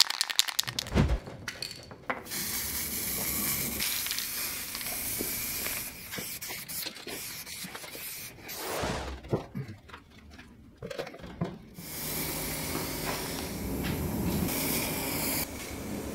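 Aerosol spray paint can spraying in two long hissing bursts of several seconds each, the first starting about two seconds in and the second near the end, with quieter stop-and-start spraying between.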